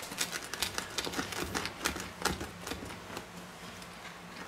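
Pizza cutter wheel pressed and rolled through a crisp baked pizza crust on a wooden board: a quick run of small crunchy crackles and clicks, thinning out after about two and a half seconds.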